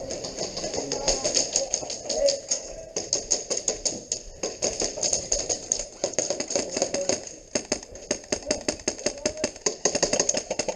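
Airsoft guns firing in rapid bursts, a fast run of sharp clicking shots with short pauses between strings, over faint voices.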